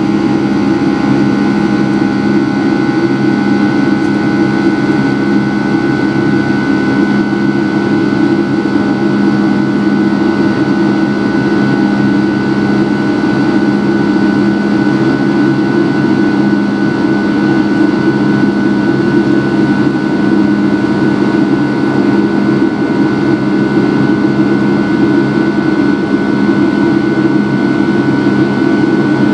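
Rolls-Royce RB211-535E4B turbofan engines of a Boeing 757-300 in flight, heard from inside the cabin over the wing: a steady, loud drone with a constant whine on top.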